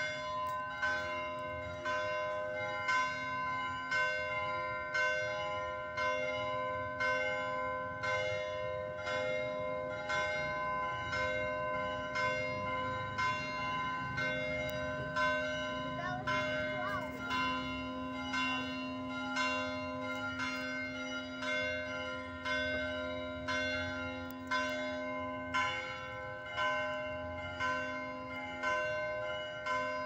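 Church bell tolling, struck about once a second, each stroke ringing on into the next.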